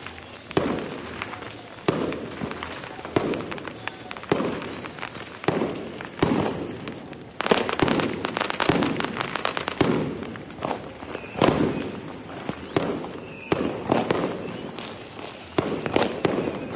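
Fireworks going off in quick succession: sharp bangs, each followed by a rumbling tail, with a dense run of rapid crackling bangs about halfway through.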